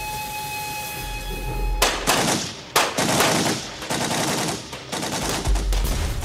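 An armoured train's steam whistle sounds as one steady held note, then cuts off about two seconds in. Dense, rapid machine-gun and rifle fire follows to the end.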